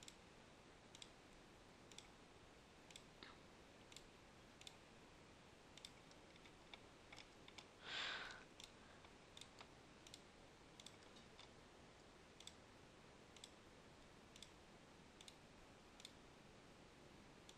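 Faint computer mouse clicks, irregular and roughly one or two a second, as vectors are selected one at a time in CAD software. A brief soft rush of noise about eight seconds in.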